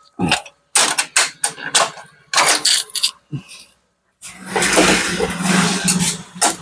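Knocks and clatter of machine parts being handled, then about four seconds in a Canon iR 6570 photocopier starts up and runs with a steady whirring and low hum.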